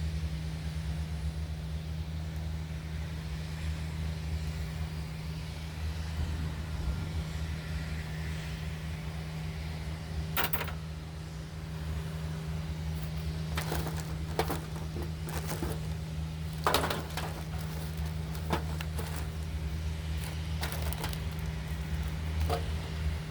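A steady low hum throughout, with scattered clicks and light knocks from about ten seconds in: small chainsaw parts and fuel line being handled during a fuel-line repair.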